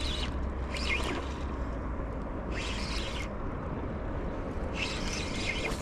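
Daiwa BG MQ 4000 spinning reel being cranked to bring in a small striped bass, with four short bursts of hiss as the handle turns and the fish swirls at the surface, over a steady low wind rumble on the microphone.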